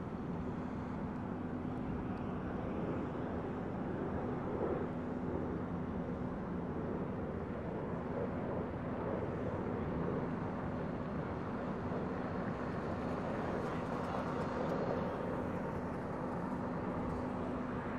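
Distant jet noise from a Yak-130 jet trainer's twin turbofan engines as it flies its display, a steady engine sound with a steady low hum beneath it.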